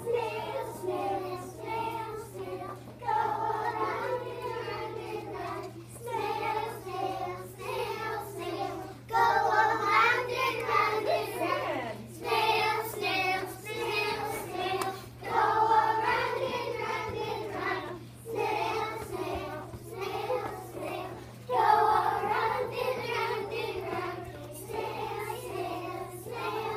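A group of young children singing a song together, in phrases of a few seconds each with short breaks between.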